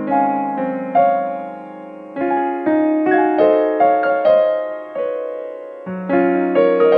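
Gentle solo piano background music: a slow melody over held chords, each note struck and fading away.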